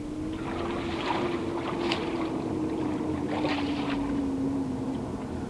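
A passing motor engine droning steadily, its pitch slowly falling as it goes, with a rushing noise over it.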